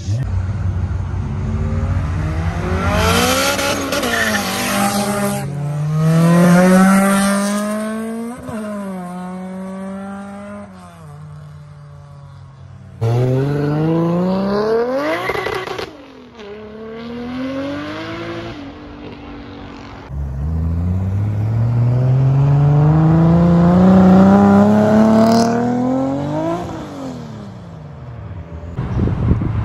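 Tuned performance car engines accelerating hard in a few separate clips, each pitch climbing steeply then dropping away as the driver shifts or lifts off. The longest pull comes about two-thirds of the way in.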